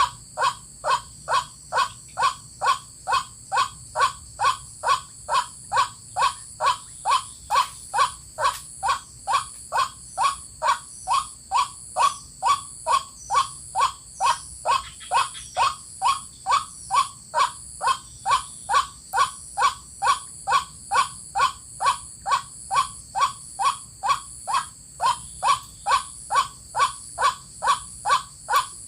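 White-breasted waterhen calls: a short croaking call repeated very evenly, about twice a second, with a steady high buzz behind it.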